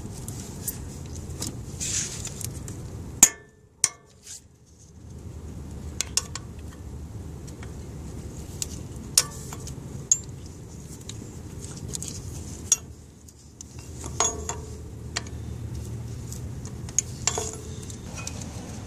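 Hand tools clinking and tapping on engine metal: scattered sharp clicks and a few short ringing metal clinks over a steady low hum, the loudest a sharp click about three seconds in. These are wrench and socket sounds from undoing the nuts, bolt and hose clamp that hold the water pump housing on a 1998 Toyota Camry 2.2L.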